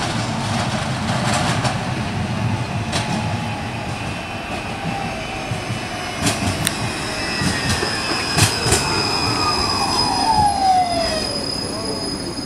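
Articulated low-floor electric tram approaching and passing close by on street track, rolling with a low rumble and several sharp clicks from the rails midway. In the second half a high steady squeal from the wheels sounds alongside a whine that falls steadily in pitch as the tram goes by.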